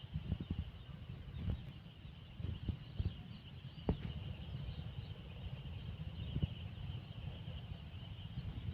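A brood of young chicks peeping together, a steady high chorus of many small calls, over a low rumble with scattered knocks.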